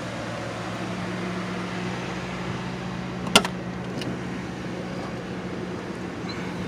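Steady low hum of a 1999 Lincoln Town Car limousine idling, its engine running. A sharp click a little over three seconds in, the loudest sound, and a lighter click about half a second later as the car's door is opened to get in.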